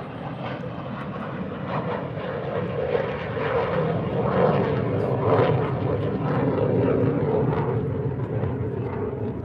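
An aircraft flying over, its engine noise swelling to a peak about halfway through and then easing off.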